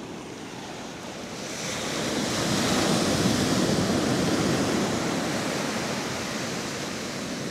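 Sea waves washing in on the beach: the surf swells about a second and a half in, then slowly eases off.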